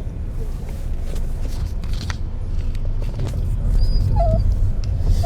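Pet dog whining in short high whimpers inside a moving car, a couple of them near the end, over the car's steady low road rumble. The owner says she starts making this sound whenever the turn indicator is put on.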